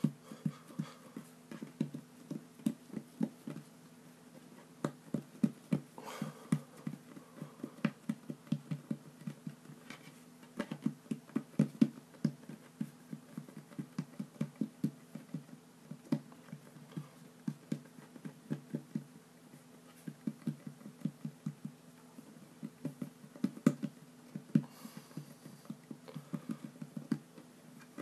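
Hands patting and pressing play dough flat on a wooden table: a steady run of soft, dull taps, several a second, with a few brief pauses.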